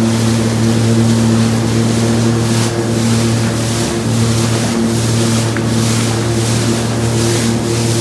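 Sea-Doo personal watercraft engine running at a steady pitch while riding across the lake, with wind and water spray hissing in uneven surges over it.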